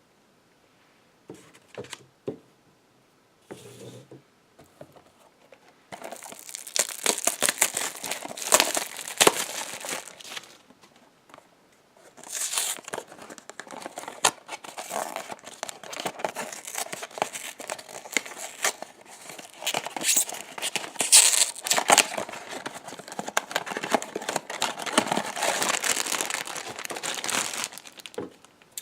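Packaging of a Funko Mystery Minis blind box being opened by hand: a few light handling clicks, then from about six seconds in a long stretch of wrapper crinkling and tearing.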